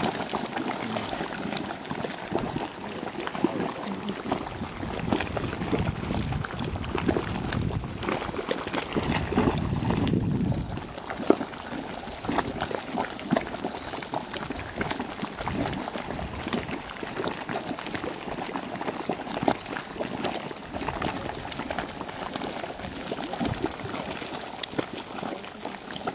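Geothermal hot pool bubbling and popping continuously as gas wells up through vents in its bed, with a louder, deeper swell of bubbling about eight to ten seconds in.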